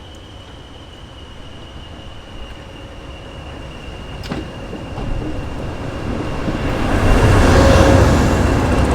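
Class 57 diesel locomotive's GM two-stroke diesel engine and train running, the rumble building steadily louder and peaking over the last two seconds, with a steady high whine throughout and one sharp click about four seconds in.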